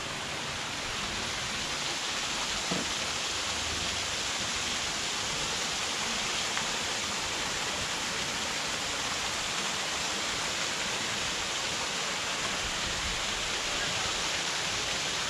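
Steady rushing of water from a small garden cascade spilling over rock steps into a pool.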